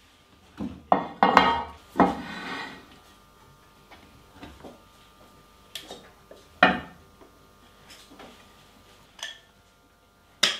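A spoon scraping and knocking against a mixing bowl as cake batter is scraped into a metal baking tin: scattered clinks and knocks, with the loudest about six and a half seconds in.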